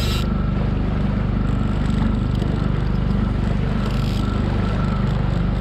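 Outboard motor of a small skiff running steadily underway, an even low drone with no change in speed.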